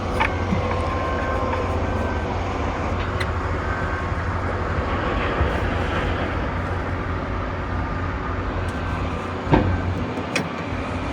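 Machinery running steadily with a low hum, with a few sharp clicks and knocks: one at the start, one about three seconds in, and two near the end.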